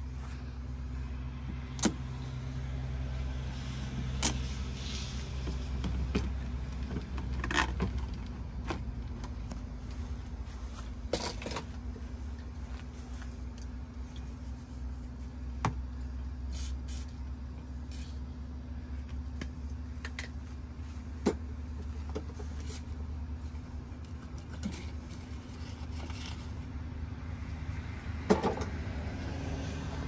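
A steady low hum with scattered sharp clicks and light rattles, from hands and tools handling the plastic outside vent cover and the parts of an RV absorption fridge's rear compartment.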